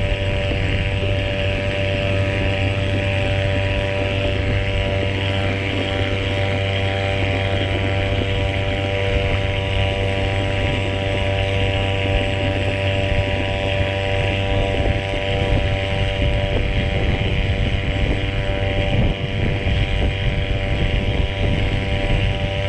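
Small 3.3 hp outboard motor on a fishing kayak running steadily at an even speed while towing a second kayak. Wind buffets the microphone.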